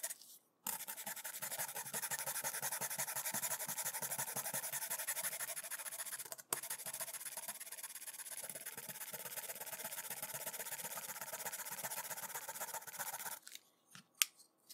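Fiberglass scratch pen scraping rapidly back and forth over the corroded edge contacts of a ROM module, scouring the corrosion down to clean metal. The scraping starts about a second in, breaks off for an instant about halfway and stops near the end.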